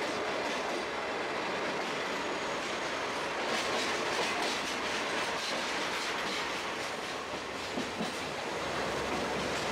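Sagano Scenic Railway trolley train running along the track, heard from on board: a steady rumble with the wheels clacking over the rail joints.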